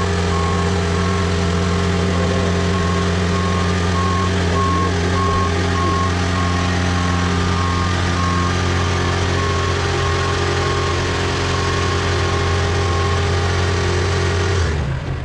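Diesel boom lift running under way, its travel alarm beeping in an even, rapid series over the engine. The beeping stops near the end, and the engine sound drops away just before the end.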